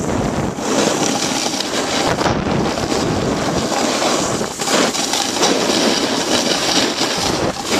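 Wind rushing over the microphone of a hand-held camcorder carried at speed down a snowy slope. The noise is loud and rough, and it swells and dips unevenly.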